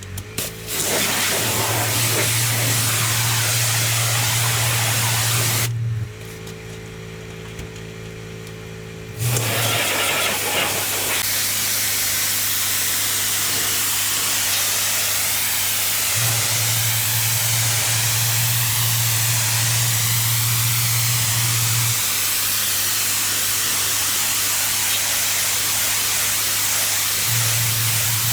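Pressure washer spraying block paving: a loud, steady hiss of the water jet over the machine's steady motor hum. About six seconds in the spray stops for about three seconds, leaving only the machine running, then the spraying starts again.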